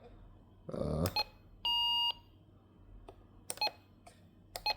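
Weather alert radio giving one steady electronic beep about half a second long, about two seconds in, among several sharp button-press clicks as its menu keys are pressed.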